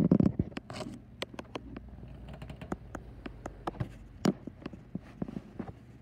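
Handling noise from a phone being moved: a bump at the start, then scattered small clicks and taps at an irregular pace.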